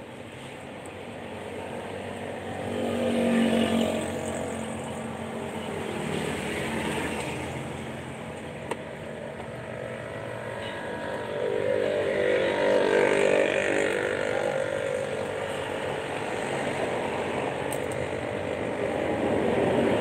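Motor vehicle engines swelling and fading several times, as of vehicles passing by: loudest a few seconds in, again about two-thirds of the way through, and near the end. There is a short click near the middle.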